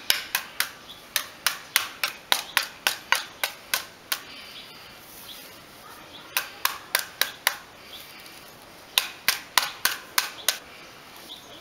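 Sharp knocks of a hand-held block tapping the ends of the bamboo sticks of a half-woven bamboo stool, driving them up or down to level the frame. The taps come in quick runs of about three a second, with two pauses of a second or two, about four and about eight seconds in.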